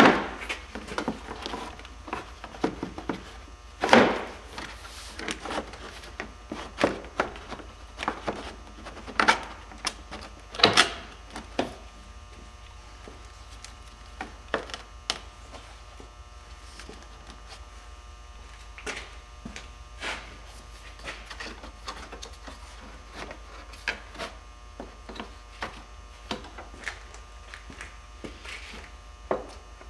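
Plastic radiator fan shroud being worked loose and lifted out past the fan: irregular knocks, clunks and scrapes of plastic against the radiator and fan, the loudest about four seconds in and again near eleven seconds, over a steady low hum.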